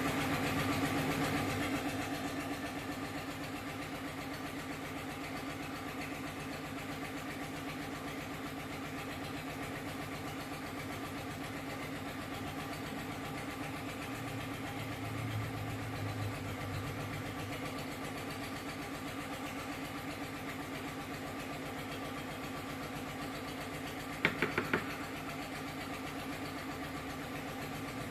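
A steady machine hum, a little louder at the start, with a quick run of about four clicks near the end.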